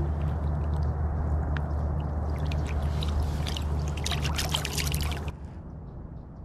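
Water splashing and dripping as a largemouth bass is let go by hand at the surface. The splashes come thickest about four to five seconds in, over a steady low hum, and everything cuts off suddenly a little after five seconds.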